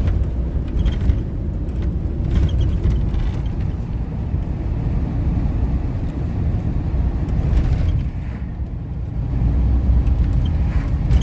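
Inside the cab of a 1998 Chevy C1500 pickup on the move: a steady low rumble of engine and road noise, with a few faint ticks or rattles.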